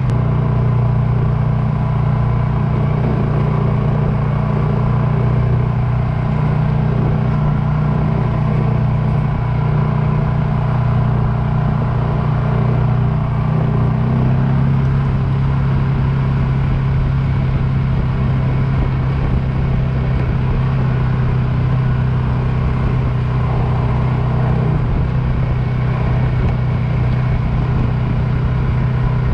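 Polaris Sportsman 570 ATV's single-cylinder engine running steadily at an easy trail pace, its pitch dropping slightly about halfway through.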